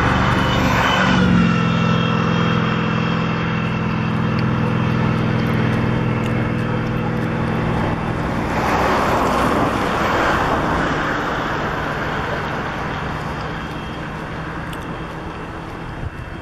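Steady low engine hum of a large passenger ferry passing, with a rush of noise swelling about a second in and again around nine to eleven seconds; the whole sound fades slowly toward the end.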